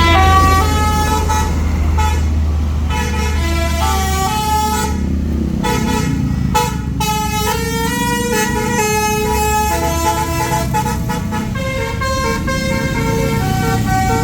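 Tour bus telolet basuri musical horn playing a tune of quick stepped notes, with the bus engine rumbling low underneath for the first few seconds.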